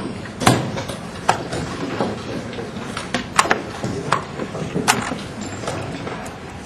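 Chess pieces set down hard on the board and chess clock buttons tapped during a blitz game: sharp clicks about once a second at an uneven pace, over the murmur of a crowded playing hall.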